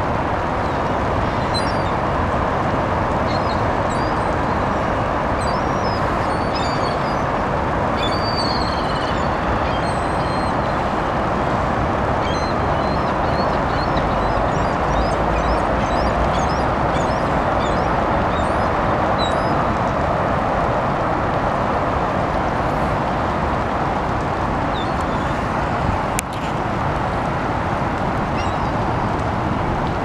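Many gulls calling in short high cries, scattered through a steady din of city traffic.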